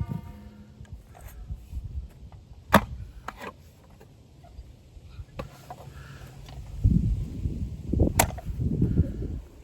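Steel digging rod striking rock: a few sharp strikes, two close together about three seconds in and one about eight seconds in, as hard rock is slowly broken up. A rough, gritty scraping noise builds over the last few seconds.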